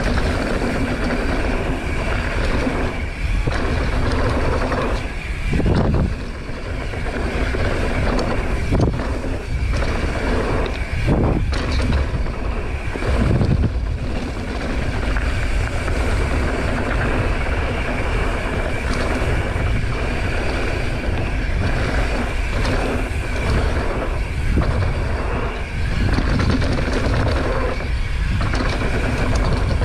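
Wind rushing over an action camera's microphone as a mountain bike runs down a dirt jump trail, its tyres rolling and the bike rattling, with several thumps from bumps and landings.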